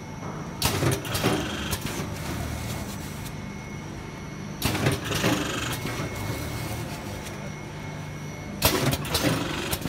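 420FD vertical packing machine running with a steady low hum, broken by three short noisy bursts about four seconds apart as it cycles.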